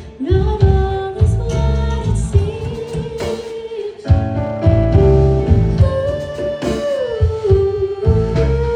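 A band playing an original song live, with a singer holding long notes that slide between pitches over the rhythmic backing.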